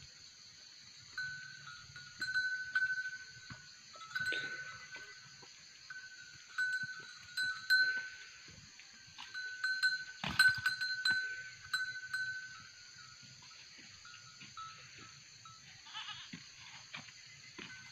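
Bells on goats clinking on and off as the goats move, with a few sharp knocks, the loudest about ten seconds in, from two billy goats butting horns in a fight.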